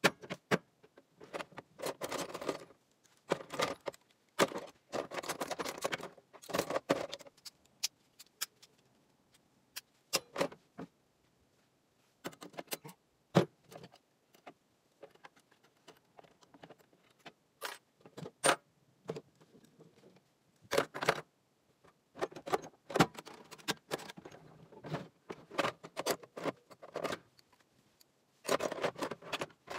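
Metal sockets, ratchets and pliers clinking and rattling against each other and the steel toolbox as they are handled. There are sharp single clicks and short bursts of jangling, in an irregular pattern.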